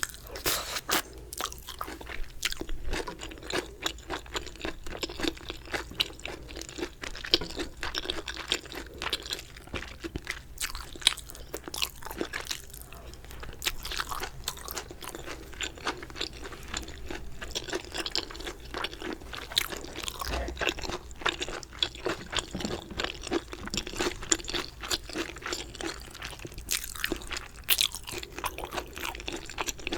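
Close-miked eating of galbi-sauce chicken: crunching bites and chewing, a dense, irregular run of short crunchy clicks.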